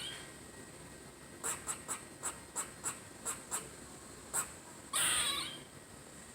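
Squirrel calling: a run of short, sharp chirps, about three a second, then one longer, louder call about five seconds in.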